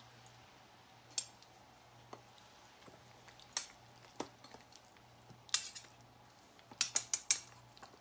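Metal utensils clinking and scraping against kitchenware while serving out food. There are scattered single clicks at first, then busier clinking in the second half with a quick run of clinks a little before the end, over a faint steady hum.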